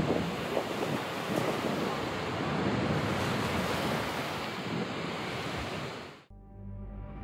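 Heavy ocean surf breaking and washing up the shore, with wind buffeting the microphone. The surf cuts off abruptly about six seconds in.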